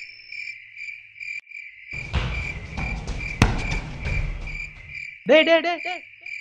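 Crickets chirping steadily in a fast, even pulse. About two seconds in, a rough rustling noise runs for some three seconds with one sharp knock in the middle, and a short voice-like burst follows near the end.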